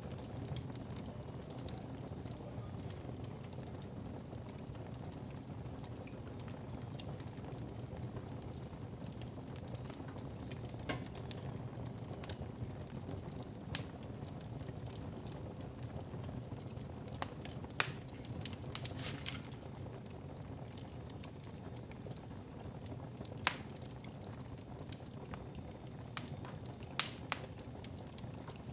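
Wood fire burning in a fireplace: a steady low rumble of flames with irregular sharp crackles and pops, the loudest pop near the end.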